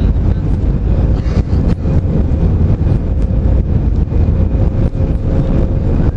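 Airbus A319-112's CFM56 jet engines and airframe heard from inside the cabin over the wing while the airliner taxis: a loud, steady low rumble with a constant hum.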